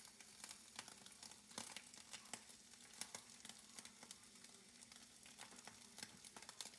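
Faint sizzling and crackling of butter and beaten eggs in a hot non-stick frying pan as the eggs are poured in, with frequent small pops.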